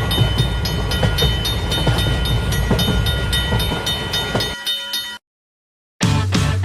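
Railroad crossing alarm ringing in a steady repeating pattern over the low rumble of a passing train. Both cut off abruptly about five seconds in. After a moment of silence, rock music with guitar starts near the end.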